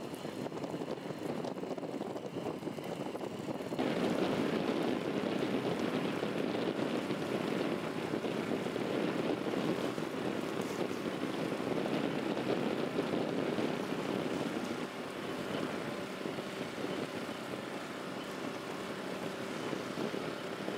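Small outboard motor running steadily, pushing a small sailboat along; the drone gets louder about four seconds in.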